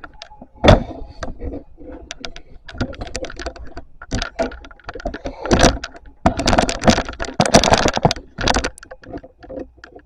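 Handling noise: a run of knocks, clicks and rustles from things being moved about, busiest from about six to eight and a half seconds in.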